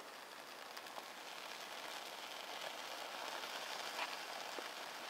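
Small fire catching in split kindling from a burning feather stick: a faint hiss of flame with a few scattered soft crackles, growing slowly louder.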